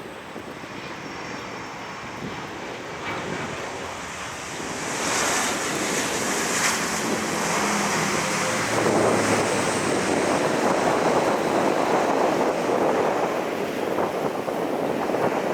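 Jet airliner engines, a rushing noise that grows louder about five seconds in and swells again near nine seconds as the aircraft comes close, mixed with wind on the microphone.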